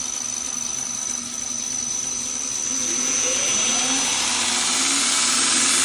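Radius Master belt grinder running on a variable speed drive: a steady machine whir with a thin high whine that fades out, then a rising pitch and growing hiss as the speed is turned up and it gets louder through the second half.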